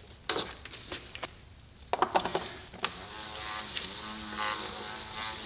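Ratchet wrench clicking as it tightens the oil filter housing cap on a BMW E46 330i. A few sharp clicks come in the first second, then from about two seconds in a steady, fast ratcheting.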